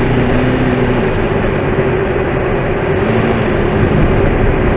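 Ford F-250's 7.3-litre Powerstroke V8 turbo-diesel running steadily: an even hum under a loud, constant wash of noise.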